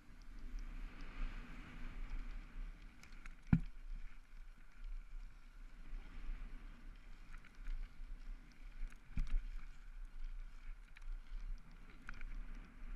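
BMX bike riding fast on a track: a steady rumble of tyres and wind, with a few sharp knocks, the loudest about three and a half seconds in and another about nine seconds in.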